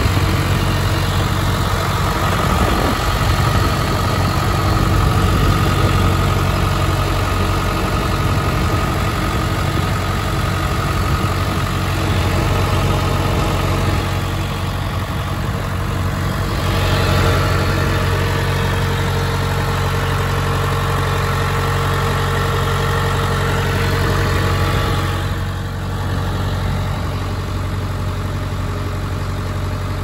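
1991 John Deere 550G bulldozer's diesel engine idling steadily.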